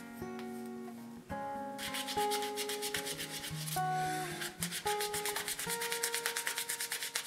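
A cloth rubbed briskly back and forth over a hand plane's wooden tote, buffing it. The rubbing starts about two seconds in and speeds up to several strokes a second, over acoustic guitar background music.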